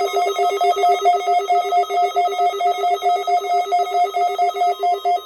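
Several NOAA weather radio receivers sounding their alert at once for a Required Weekly Test: a steady tone mixed with rapid beeping at about five beeps a second. The steady tone cuts off near the end while the beeping keeps going.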